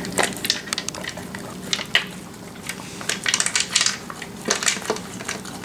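A Doberman eating dry kibble from a plastic slow-feeder maze bowl: pellets clicking and rattling against the plastic ridges as it noses and chews them, in quick irregular clusters.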